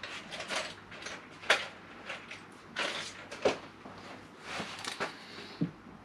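Handling noises as pieces of wood and tools are moved about on a workbench: irregular scrapes and rustles with a few sharp clicks and light knocks, the sharpest about a second and a half in and again near the middle.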